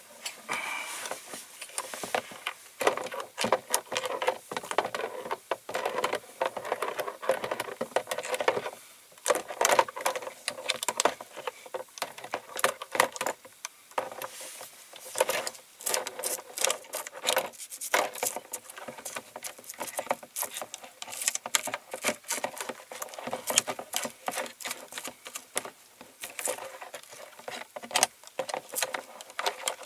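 A brush scrubbing a diecast metal model body in caustic soda, stripping off the loosened paint. It makes irregular scratching and clicking, with small metallic clatters.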